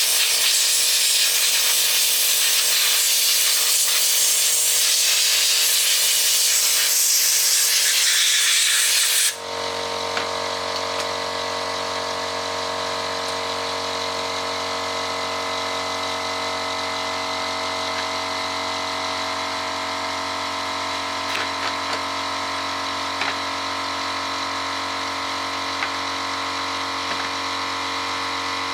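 Electric power tool motor running steadily with a high whine. For the first nine seconds or so a loud hissing grind runs over it, typical of a wheel or brush working metal, then cuts off suddenly, leaving the motor spinning on its own with a few light clicks.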